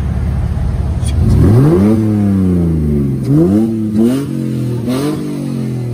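A BMW's engine idling, then revved: one long rise about a second and a half in that falls away slowly, followed by three short throttle blips, each dropping back toward idle.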